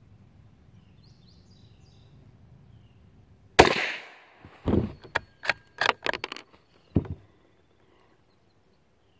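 A single shot from a Ruger American bolt-action rifle in .22 Magnum, a sharp crack with a brief ring-out. About a second later comes a quick run of sharp metallic clicks and clacks over two or three seconds as the bolt is worked to eject the case and chamber the next round.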